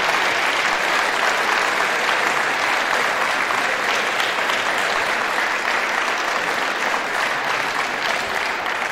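Crowd applauding steadily, with a dense patter of many hands clapping that eases a little near the end.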